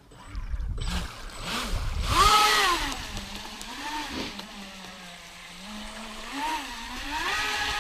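Pro Boat River Jet 23 RC jet boat running on a 4S LiPo, its electric motor and water jet whining up and down in pitch as the throttle is worked. The loudest rise and fall comes about two seconds in, and the pitch holds steadier through the middle.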